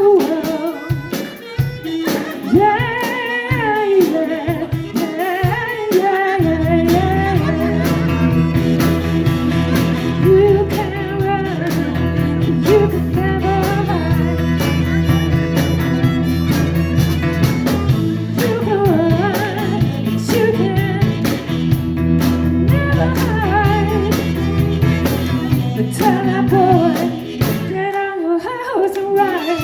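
Live blues band music: a passage without words in which a lead melody wanders over held bass notes that change every several seconds.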